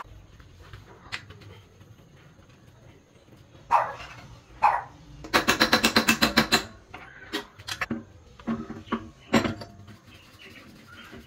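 An animal calling in short, pitched calls: two single calls, then a quick run of about a dozen in a row, then a few more spaced out.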